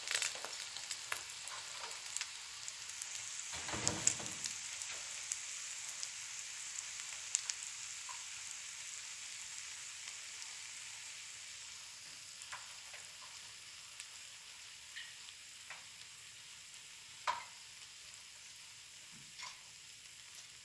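Eggs frying in an aluminium pan on a gas stove: a steady sizzle with scattered pops and crackles, slowly dying down. About four seconds in there is a brief, louder muffled bump.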